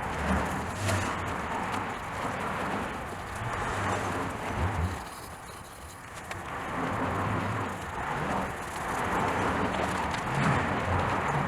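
Superfine steel wool scrubbing a chrome wheel with Autosol metal polish, a rasping rub that swells and fades with each stroke.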